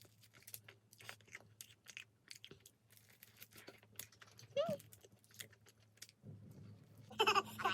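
Close-up chewing with many small crisp mouth clicks and crunches. A short pitched call sounds near the end.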